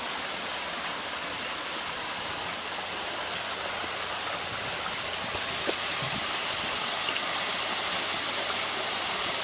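Steady rush of running water, like a small stream or cascade. A single sharp click comes just over halfway through.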